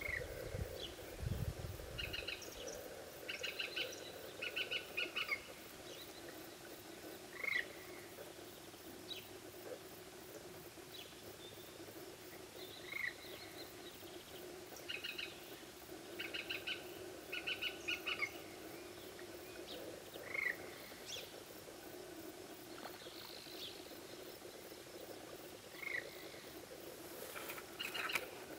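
Small birds calling: short quick trains of chirps come every few seconds, and a single down-slurred call sounds about every five or six seconds. Under them is a faint steady background of low noise.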